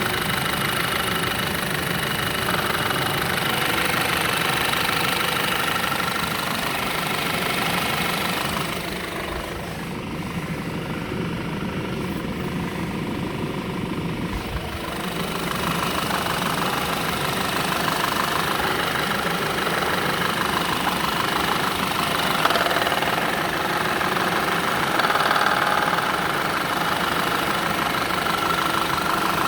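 Audi/VW 2.0 TFSI turbocharged four-cylinder petrol engine running steadily at idle with a knocking noise whose cause is unknown. The sound turns duller for several seconds about ten seconds in.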